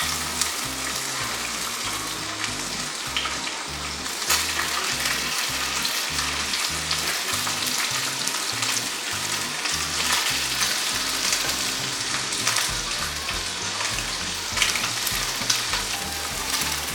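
Pieces of octopus sizzling as they sauté in hot oil in a frying pan, a steady frying hiss with scattered sharper crackles.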